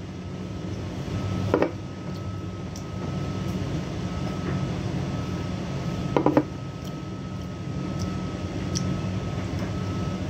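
Steady low hum with a faint high steady tone, broken by two brief knocks, about a second and a half in and again after six seconds, from handling a drink carton and plastic cup.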